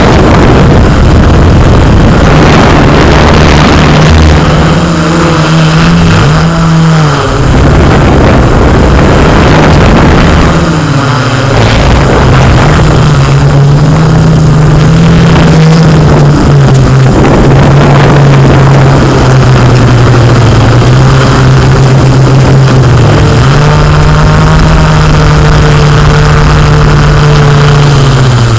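Yuneec Q500 quadcopter's propellers humming steadily over a loud rushing noise. The pitch steps up and down every few seconds as the drone manoeuvres.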